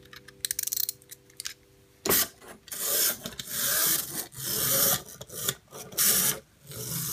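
A plastic wind-up toy train's key clicking as it is wound, then from about two seconds in the clockwork toy running on the table in repeated noisy bursts, roughly one a second.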